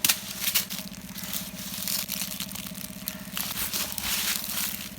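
Crunching and chewing of a raw, firm guava, in irregular crisp crunches.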